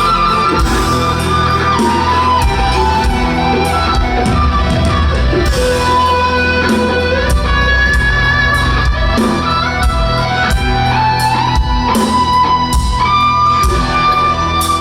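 Live rock band playing loudly: regular drum hits over a bass line, and a lead melody of long held notes with pitch slides.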